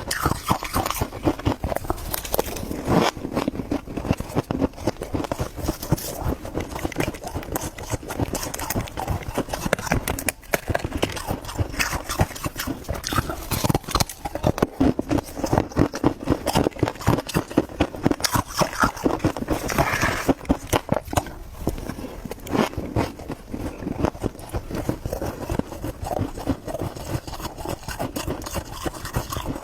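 Freezer frost being chewed: a dense, continuous run of crisp crunches, several a second.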